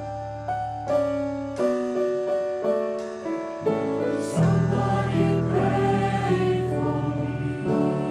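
A virtual choir singing a hymn with piano and bass guitar accompaniment. Piano notes carry the first half, and the voices come in strongly about halfway through.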